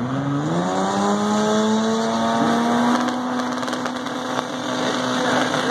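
Drag race car engines at full throttle as cars accelerate down the strip. The engine note climbs steeply in the first half-second, then holds high and steady. Near the end, another engine note starts rising.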